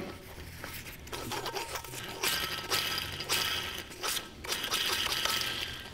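Crankshaft main ball bearing in a split Peugeot Speedfight 2 crankcase half, spun by hand several times: a dry rolling whir with fine rattling that swells and dies away with each spin. The mechanic judges the bearing healthy by this sound.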